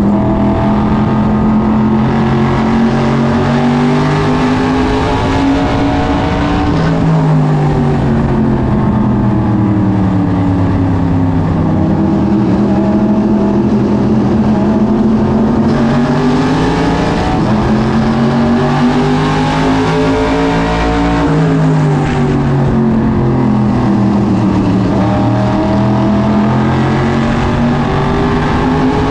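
SK Modified race car's V8 engine heard from inside the cockpit at racing speed. The revs climb along the straights and drop back into the turns, twice over, with other race cars' engines running close around it.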